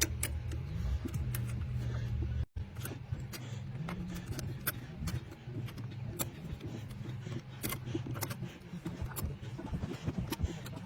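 Light metallic clicks and taps as a brake pad clip is worked into place on the caliper, over a steady low hum.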